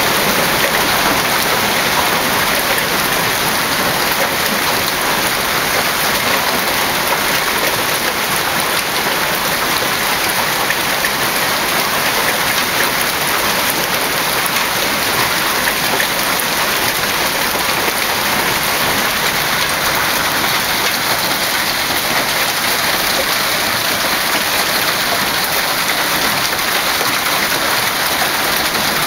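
Hail and rain pelting down steadily, a dense patter of countless small hits.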